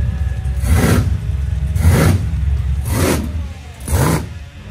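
Car engine rumbling at idle and revved in four short blips, about one a second, the last one rising in pitch.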